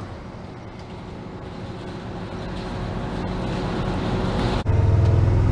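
Pickup truck on the move: engine and road noise growing steadily louder as it gathers speed. Near the end the sound jumps suddenly to a louder, steady low engine drone.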